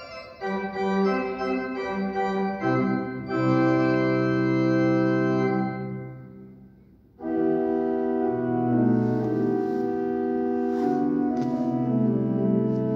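Hybrid church organ (Viscount Envoy 350 console with Physis digital voices and J. W. Walker pipework) playing held full chords. About six seconds in, a chord dies away into the building's reverberation, and a second later a new full chord comes in and sustains.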